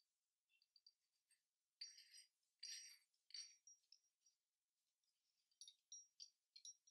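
Faint metal-on-metal clinks and scrapes of an Apeks US4/DS4 first stage's metal diaphragm clamp being turned by hand onto the regulator body's threads. A few short clinks come about two to three and a half seconds in, and another cluster near the end.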